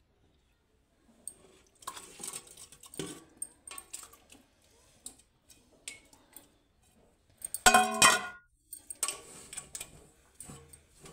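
Stainless steel pots and lids clinking and knocking as they are handled, with one louder ringing clang about eight seconds in.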